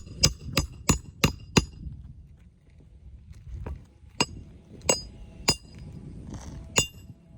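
A series of sharp, ringing clinks of hard objects, like metal striking metal: six quick ones in the first second and a half, then five more spread out over the next few seconds.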